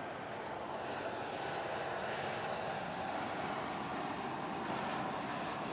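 Jet engines of an Airbus A320-family airliner on final approach with its landing gear down: a steady rushing hiss with a whine running through it, growing louder as the plane comes closer.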